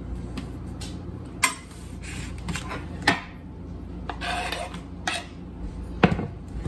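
A kitchen knife knocking sharply on a cutting board four or so times, a second or two apart, as fish fillet is cut up, with a short scrape in between. A steady low hum runs underneath.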